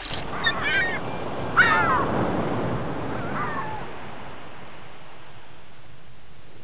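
Three harsh, crow-like caws, each with a falling pitch and the second the loudest, over a steady hiss. The hiss runs on alone after the last caw and cuts off suddenly at the end.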